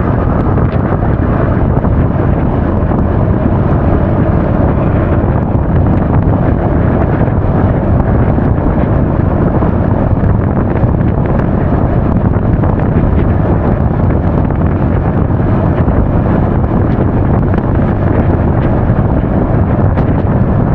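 Loud, steady wind noise buffeting an action camera's microphone while riding a Honda Forza 350 scooter, with the scooter's running and road noise underneath.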